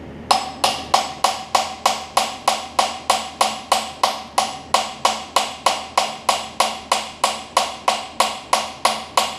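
Small hammer tapping steadily on a steel socket held against the rust-seized piston of a Briggs & Stratton Vanguard engine, about three and a half taps a second, each a short metallic ring. The taps are slowly driving the frozen piston down the cylinder to free it.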